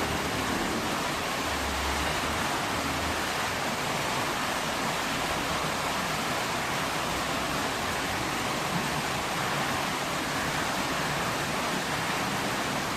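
Heavy, steady rain pouring down, an even hiss without let-up.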